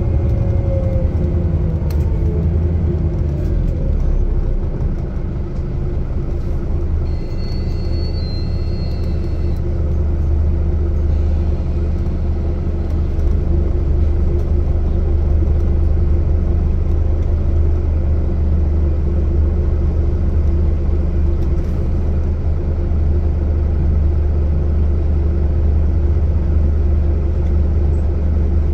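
Steady low rumble of a Scania GN 18 articulated city bus's engine and running gear, heard from inside the passenger cabin. A whine falls in pitch over the first couple of seconds. A brief high tone sounds about a quarter of the way in. From about halfway the rumble is a little louder.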